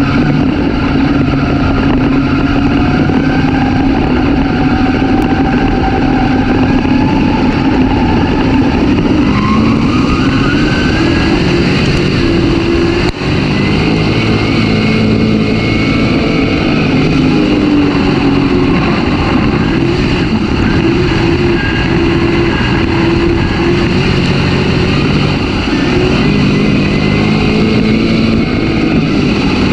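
Race car engine at racing speed, heard from the in-car camera, its pitch rising and falling every few seconds as the throttle comes on and off around the track.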